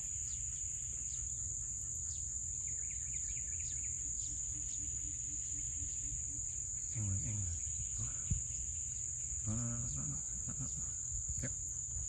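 Steady, high-pitched insect chorus over a low rumble, with a few short low human murmurs about seven and ten seconds in.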